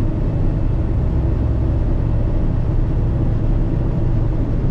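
Steady low engine and road noise heard from inside a vehicle cruising at highway speed.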